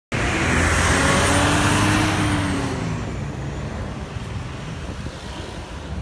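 A bus engine running close by, loud for the first two and a half seconds or so and then fading, leaving general road traffic noise.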